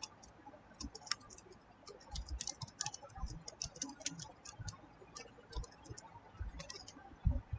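Irregular clicking and tapping at a computer keyboard, in quick clusters, with a few dull low thumps; the loudest thump comes near the end.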